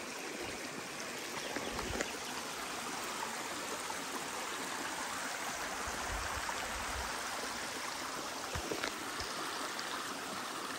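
Small, shallow mountain creek running and babbling over rocks, a steady rushing, with a few soft thumps now and then.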